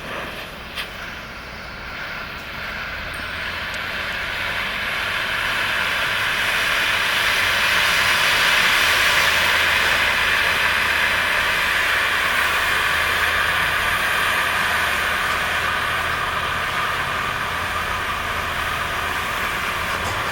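Maxsem MA0515BK firework burning with a steady, loud hiss that builds over the first several seconds, then eases a little and holds.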